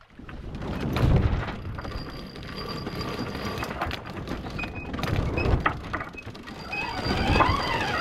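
Sail handling at a sailboat's mast: ropes and sailcloth rustling and deck hardware knocking as sails are hoisted, with a few short squeaks near the end.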